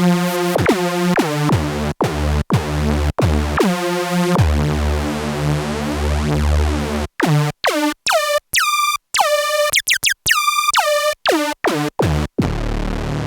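Arturia MicroFreak synthesizer playing a patch of pitched notes, each starting with a quick downward pitch swoop. From about halfway the notes become short and choppy with abrupt gaps of silence, and near the end a low steady bass tone takes over.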